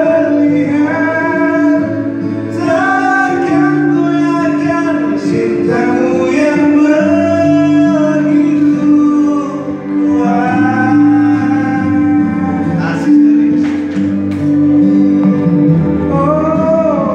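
Two men singing into handheld microphones over a backing track of sustained low chords, holding long notes.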